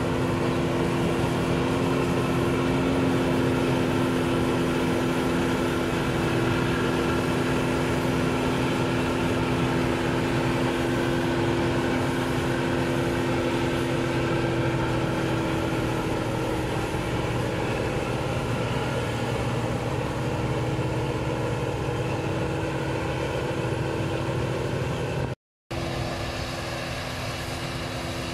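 New Holland 8070 combine harvester running steadily under load as it cuts and threshes rice: a continuous engine and machinery drone with a steady hum. It breaks off for a moment near the end and comes back a little quieter.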